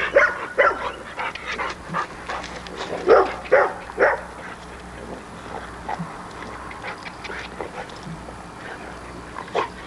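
American Bulldog barking and yipping in short bursts, several in the first four seconds, then quieter, with a couple more near the end.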